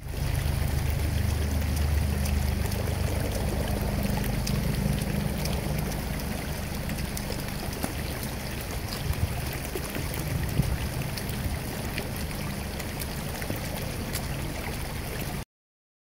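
Waterfall rushing steadily, with the low drone of a rescue helicopter circling overhead underneath it, strongest in the first few seconds.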